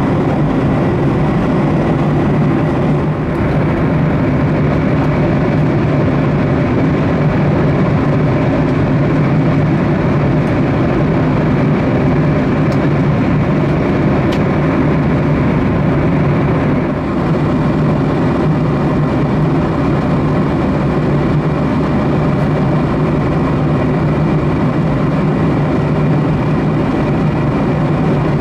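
Steady cabin noise of a Boeing 737-800 at cruise, heard from inside the cabin: a constant low drone from its CFM56-7B engines under a rush of airflow.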